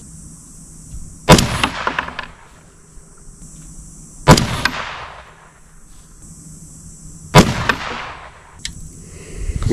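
Three rifle shots from an AR-15-style rifle chambered in 22 ARC, fired about three seconds apart as a three-shot group. Each shot is a sharp crack that trails off over about a second.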